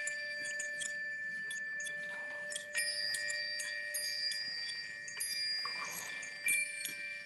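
Bell-like chime tones ringing on and fading slowly, with new strikes about a third of the way in and near the end. Scattered small metallic clicks sound between the strikes.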